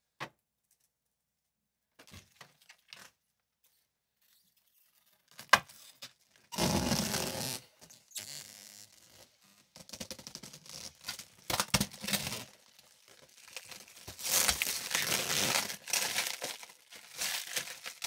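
Protective plastic film being peeled off the tempered glass side panel of a PC case. It comes away in several noisy pulls, starting about six seconds in, and is crumpled in the hand near the end.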